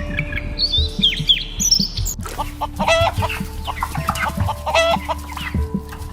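Small birds chirping, then an abrupt change about two seconds in to chickens clucking in short repeated calls.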